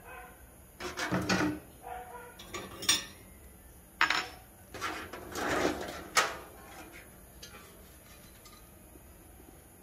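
Metal parts of a pressure kerosene stove clinking and clattering as they are lifted off and set down on a wooden shelf: several separate clanks and rattles, the stove being taken apart.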